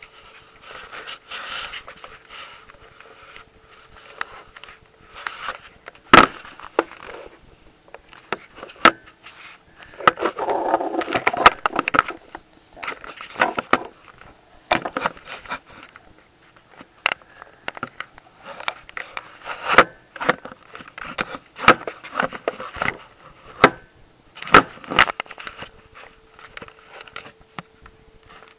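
Handling noise of a camera rubbed against fabric: irregular scraping and rustling broken by many sharp clicks and knocks, the loudest knock about six seconds in and the densest rustling about ten to twelve seconds in.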